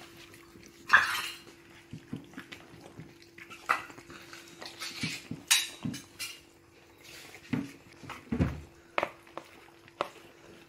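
Cats eating wet pâté food from a clear plastic tray: scattered wet chewing and lapping noises and light clicks and knocks as the tray is bumped, with a duller thump about eight and a half seconds in.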